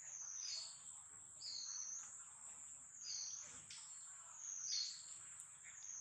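Insects shrilling outdoors: one continuous high-pitched whine that swells and dips about every second and a half.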